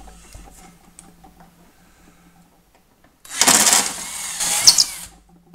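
A few faint clicks, then about three seconds in a power drill with a 5/32-inch bit runs loudly for about two seconds and stops near the end, boring into polycarbonate sheet to enlarge a 3/32 pilot hole.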